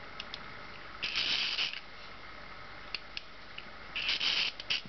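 Curta Type II mechanical calculator being worked by hand: a few small clicks, then two short rattling crank turns of its mechanism, about a second in and again about four seconds in.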